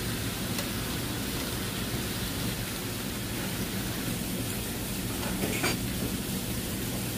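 Sliced pork and offal sizzling steadily on a large hot pan, with one brief louder sound about five and a half seconds in.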